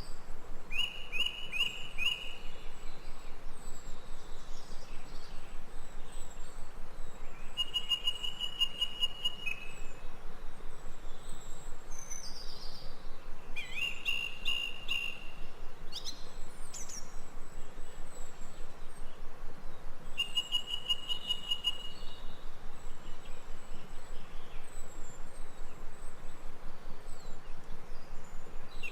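Jungle ambience: a bird gives short whistled phrases four times, several seconds apart, over a steady, fast-pulsing chorus of insects.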